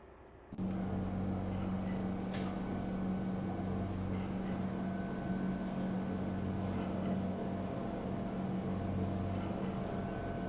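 A steady low hum that starts abruptly about half a second in and keeps going, its deepest part slowly swelling and fading, with one sharp click about two seconds in.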